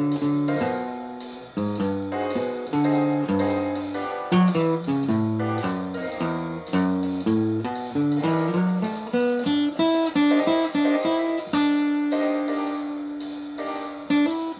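Outro music on plucked acoustic guitar: a picked melody over a low bass line, each note struck and dying away, settling on one long held note in the last few seconds.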